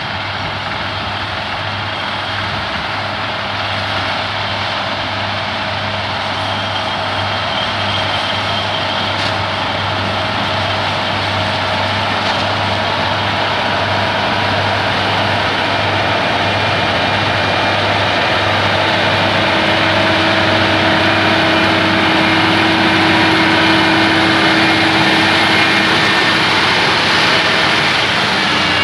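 Massey Ferguson 6180 tractor running steadily under load while pulling a trailed Kverneland disc mower through a standing oat crop, with steady whining tones over the engine. It grows gradually louder as it approaches.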